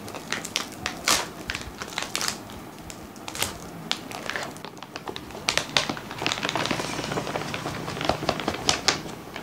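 Plastic protein-powder pouch crinkling and crackling as it is torn open at the top and the opening pulled apart by hand, with irregular sharp crackles that come thicker in the second half.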